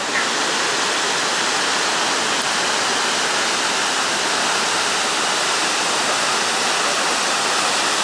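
Iguazu Falls: the many cascades of the Iguazu River making a steady, loud rush of falling water, coming in abruptly at the start.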